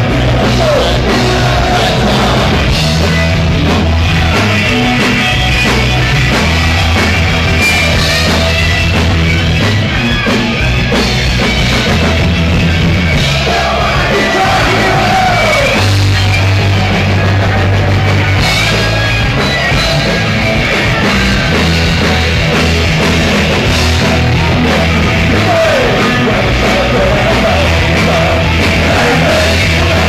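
Live punk rock band playing loud, with electric guitars, bass guitar and drums, and a singer's vocals coming in at times.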